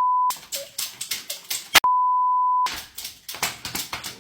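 A steady single-pitch censor bleep that cuts off about a third of a second in, then a second bleep of under a second just before the middle. Between and after the bleeps come irregular clicks and knocks.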